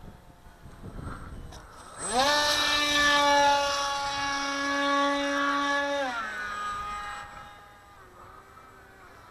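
Radio-controlled model plane's motor and propeller buzzing in flight. The pitch jumps up sharply about two seconds in, holds steady for about four seconds, then drops and fades away.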